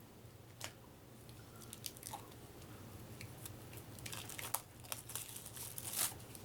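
A small deck of playing cards being unwrapped and opened by hand: scattered crinkling and crackling of its packaging, busier in the second half and loudest about six seconds in.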